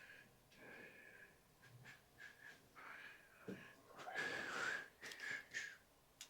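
A man whistling softly to himself: a wavering tune of short notes that change pitch, with a breathy rush on the loudest notes about four seconds in.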